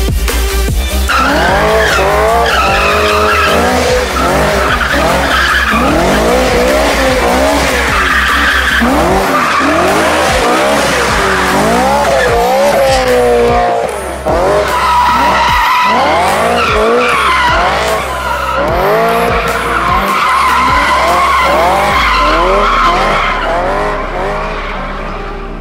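BMW i8 drifting, its tyres squealing in long, wavering screeches that rise and fall in pitch, over a steady low rumble.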